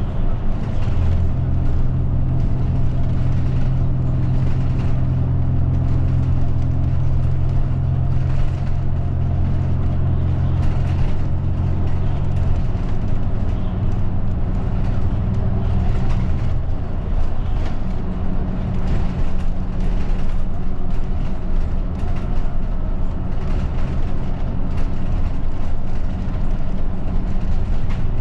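Route bus running, heard from inside the cabin: a steady low engine drone over road noise, its pitch dropping away about twelve seconds in and shifting again a few seconds later as the engine speed changes.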